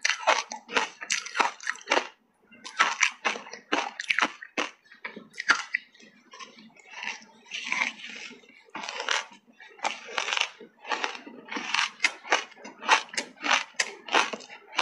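Crunching and chewing of ice chunks coated in matcha powder: sharp, close crunches several a second, with two short lulls.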